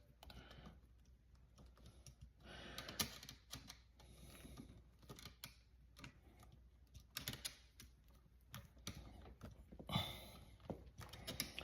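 Faint, scattered clicks and scrapes of a screwdriver turning and tightening the terminal screws on a wall outlet, with a sharper click about three seconds in.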